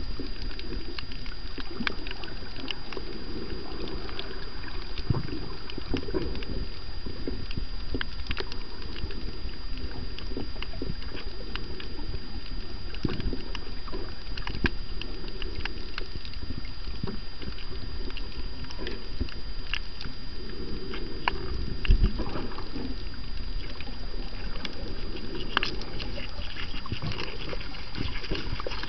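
Underwater reef sound heard by a camera below the surface: a dense, irregular crackle of clicks over a low rushing noise that swells and fades, with a steady thin high tone throughout and one louder knock about three quarters of the way through.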